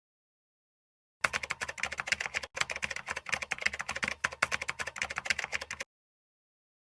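Keyboard typing: a fast, continuous run of key clicks that starts a little over a second in and stops about a second before the end.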